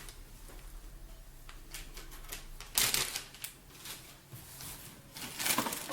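Packaging rustling and crinkling as merchandise is handled and pulled from a box, loudest about three seconds in and again near the end.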